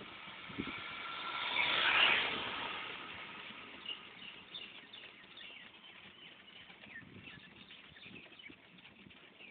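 Road traffic: a passing vehicle's noise swells to its loudest about two seconds in and fades away, then low traffic noise with faint high chirps.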